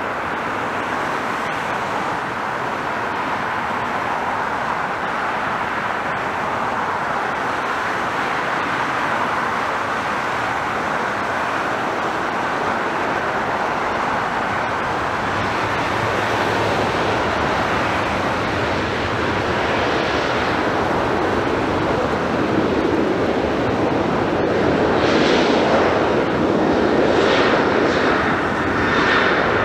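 Boeing 737 jet engines at high power on a takeoff roll: a steady jet roar that grows slowly louder. In the last few seconds it swells and wavers with a higher whine as the airliner speeds past.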